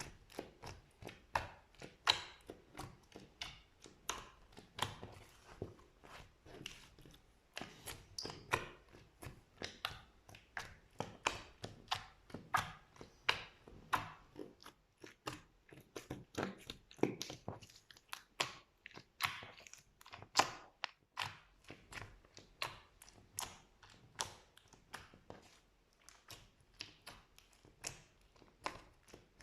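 Slime being squished and worked, giving a continuous run of clicks and pops about two or three a second.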